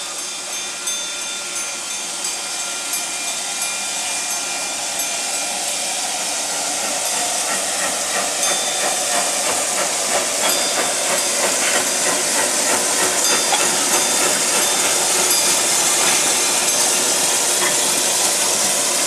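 Narrow-gauge 4-4-0 steam locomotive approaching and passing, its steam hissing with regular exhaust beats, growing louder as it comes near.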